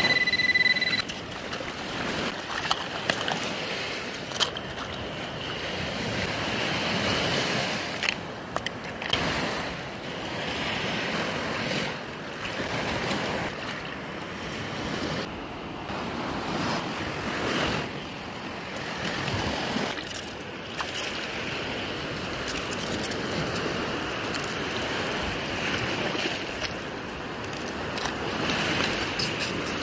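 Small waves washing up and draining back over a sandy beach, with wind on the microphone. In the first second a metal detector gives a short, steady electronic beep, and a few sharp clicks come in the first ten seconds.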